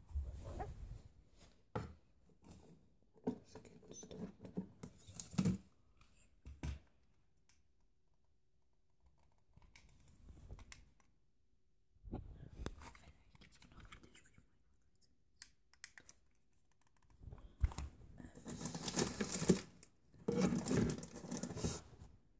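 Close-range rustling, crinkling and knocking from rummaging through a drawer and handling the phone, coming in irregular clusters with a quieter stretch of several seconds in the middle.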